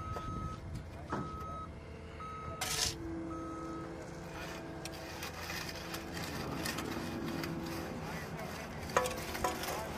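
A vehicle's reversing alarm beeping about once a second for the first three or four seconds, over a low hum of machinery and faint voices.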